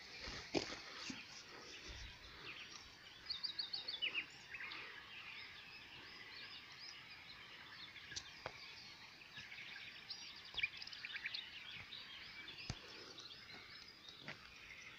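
Several songbirds chirping and singing over a faint outdoor hush, with a quick run of high chirps about three to four seconds in. A few sharp clicks come through now and then.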